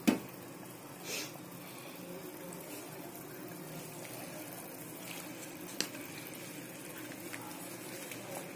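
Water bubbling at a rolling boil in a pan as roasted semolina (rava) is poured in and stirred with a wooden spatula. A sharp click comes right at the start, and a short tick about six seconds in.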